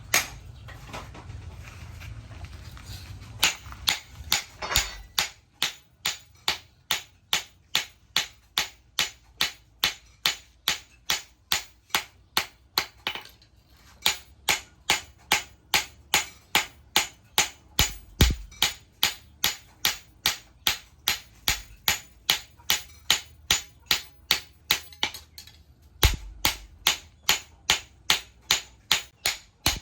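Hammer blows on metal at a steady rhythm of about two a second: a blacksmith hammering out an old sickle blade. The strikes start a few seconds in and pause briefly twice.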